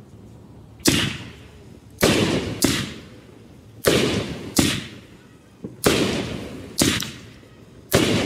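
Consumer firework cake ('Just Sick', Fantasy Fireworks brand) firing its shots: about nine sharp bangs starting about a second in, roughly one a second, some in quick pairs, each trailing off over about half a second.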